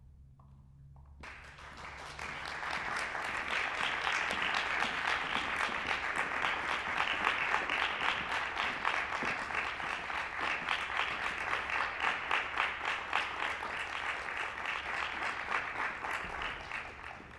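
Concert audience applauding. The clapping starts about a second in, swells over the next couple of seconds, holds steady and dies away just before the end.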